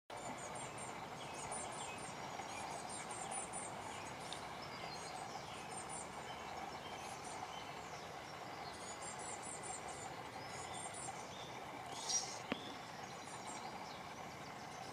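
Quiet outdoor ambience: a steady faint background hum with short runs of high-pitched chirping several times, and a single sharp click near the end.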